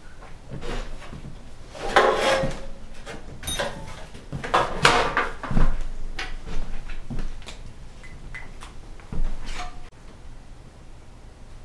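Thin bent aluminium console panel being handled on a wooden table: irregular knocks, rattles and scrapes of the sheet metal as it is picked up, turned over and set down, quieter near the end.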